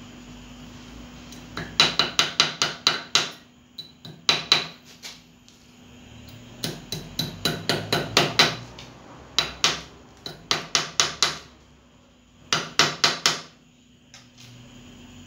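Small hammer tapping a metal piece clamped in a steel bench vise, with bright metallic clinks. The blows come in six quick runs of three to a dozen strikes, about five a second, with short pauses between the runs.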